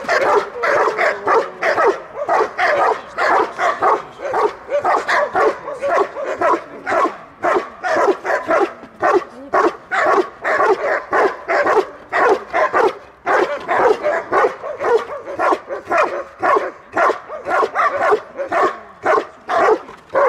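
Belgian Malinois barking in a fast, unbroken series, about two to three barks a second: guard barking at a decoy in protection training.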